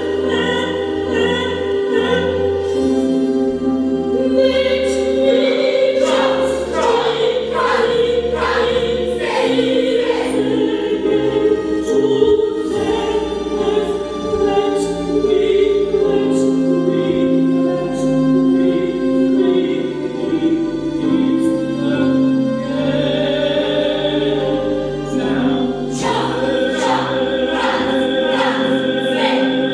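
Music: a choir singing long held notes that change chord every second or two.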